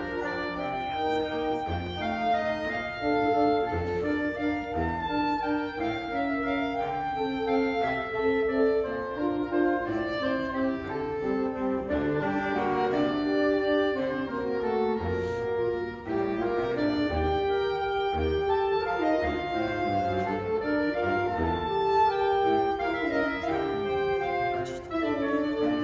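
Saxophone quartet of soprano, alto, tenor and baritone saxophones playing a piece together in sustained, layered chords, with the baritone holding the low notes.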